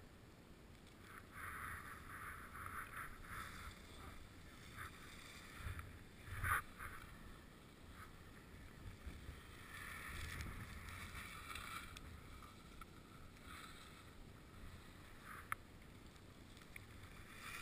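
Skis scraping and hissing over packed snow, swelling and fading with each turn, with one louder burst about six and a half seconds in.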